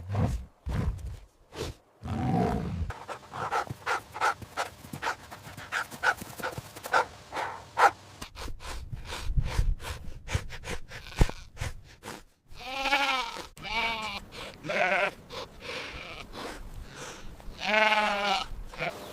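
Sheep bleating: a run of short, quick clicks and noises, then a few long wavering bleats in the second half.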